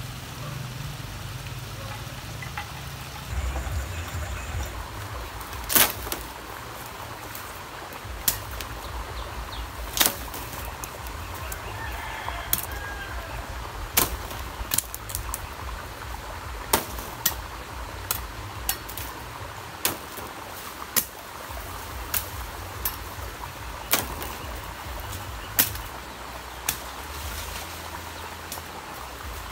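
Sharp knocks and snaps every second or two, from a man working and moving among dry bamboo poles and brush, over a steady low rumble.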